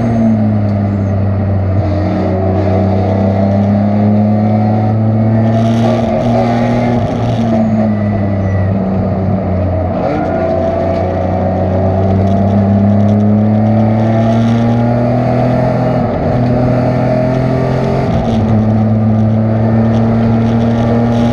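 Race car engine running hard on track. Its pitch climbs slowly and drops back several times as the car accelerates, shifts and slows.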